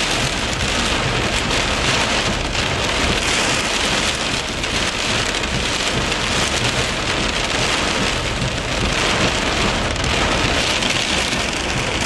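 Very heavy, wind-driven rain pelting a vehicle's roof and windshield, heard from inside as a steady, dense hiss.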